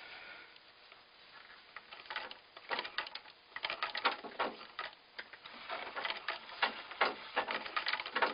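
An 1898 New Home treadle sewing machine being started at the handwheel and run, driven through a duct-taped belt that slips. It makes a rapid, uneven clatter of mechanical clicks and knocks that grows denser and louder after the first couple of seconds.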